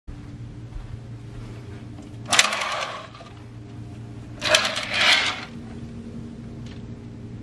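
Hotel window curtain drawn open along its rail in two short pulls, over a steady low hum.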